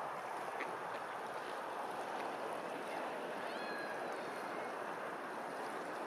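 Steady wash and lapping of open water. A brief, high, slightly gliding bird call comes a little past halfway through.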